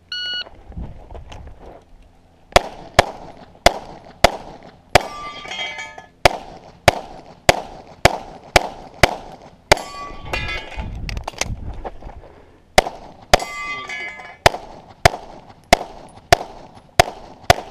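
Shot timer beeps once, then a semi-automatic pistol fires a long rapid string of shots, roughly two to three a second, during a USPSA stage run. Hits on steel plates ring with a metallic clang after several of the shots.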